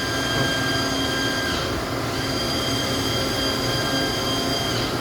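Y-axis servo drive and ballscrew of an Awea/Yama Seiki SP3016 bridge-type vertical machining center moving the spindle head along the bridge: a steady high-pitched whine that breaks off about a second and a half in, starts again about half a second later, and stops near the end, over the machine's constant lower hum.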